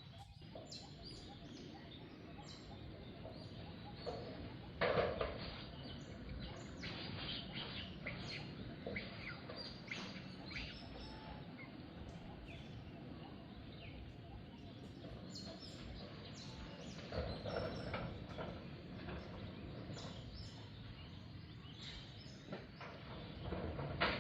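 Outdoor ambience: a steady background hiss with many short animal chirps and calls scattered through it, the loudest call about five seconds in and another cluster about two-thirds of the way through.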